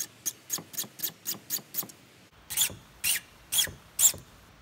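An empty BIC lighter's flint wheel struck again and again to throw sparks into pine needles tucked beside it: a quick run of short rasping scratches, about four a second, then after a short pause four louder, slower strikes.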